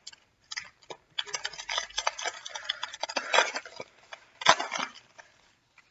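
Foil trading-card pack wrapper crinkling and crackling as it is torn open, in quick irregular crackles, with one sharper crack late on.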